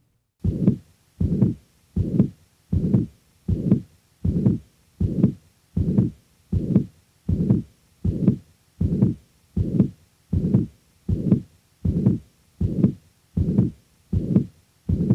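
Stethoscope recording of a heart with mitral regurgitation: a rather high-pitched pansystolic (holosystolic) murmur filling systole from the first to the second heart sound, beat after beat at about 80 beats a minute.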